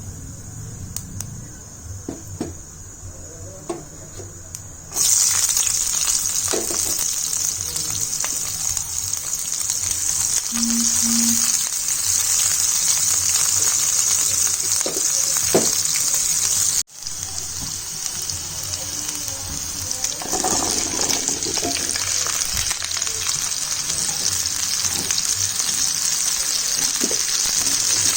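Pumpkin frying in hot oil in a pan: a steady, loud sizzle that starts suddenly about five seconds in. Before that there are a few light clicks and knocks.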